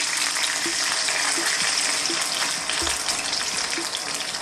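Water poured into a hot, oiled wok, hissing and sizzling as the stream hits the hot pan and food, gradually easing off toward the end.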